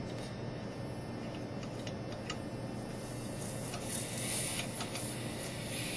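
Laboratory vacuum pump running steadily with a low hum, holding a vacuum in the bell jar, with a few faint clicks as a hand handles the fitting at the jar's base.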